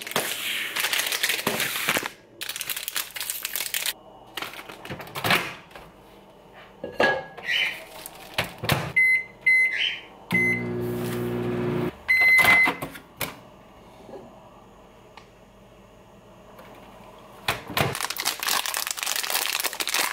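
Hamilton Beach microwave: a few short keypad beeps about nine seconds in, the oven humming steadily for a couple of seconds, then one longer beep. Plastic protein-bar wrapper crinkling at the start and being torn open near the end.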